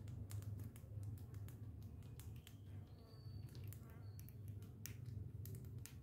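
Rapid, irregular sharp clicks and taps over a low steady hum, with a few short high chirps.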